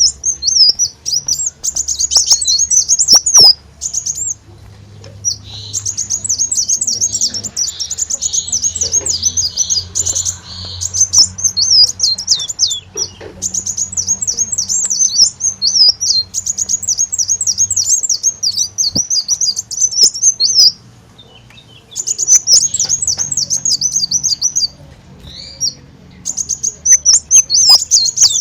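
Kolibri daun (a sunbird) singing a fast, high twittering song in long runs of quick chirps, broken by a few short pauses. This is a lure recording of the species' song, played to draw wild birds or set caged ones singing.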